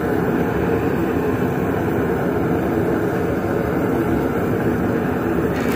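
Propane forge burner running loud and steady: an even, unbroken rushing noise.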